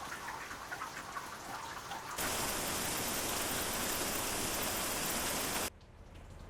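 Rain sound-effect samples spliced one after another: rain with distinct drops pattering, then about two seconds in an abrupt cut to a loud, even downpour hiss, which stops just as abruptly near the end, leaving quieter, sparser rain.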